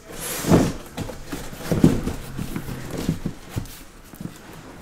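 A cardboard case of sealed trading-card boxes being opened and handled: a brush of cardboard, then a series of dull knocks and thumps. The loudest comes about half a second in, and another just under two seconds in.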